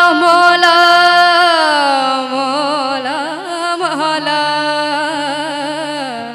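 A long wordless sung note in a naat, an alaap: it holds steady, slides down, turns through quick wavering ornaments, then settles and breaks off just before the end. A low accompanying note sounds underneath.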